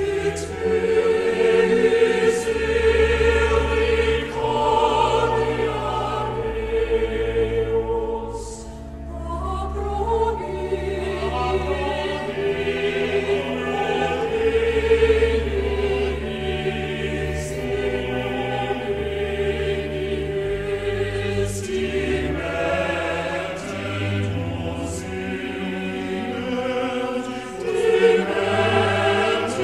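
Choir singing slowly in long held notes over a sustained low accompaniment that changes note every couple of seconds.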